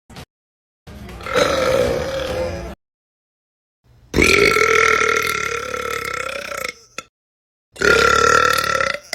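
Three burps in a row, each cut off into dead silence. The first lasts nearly two seconds, the second is a long, drawn-out burp of about two and a half seconds, and the third is shorter.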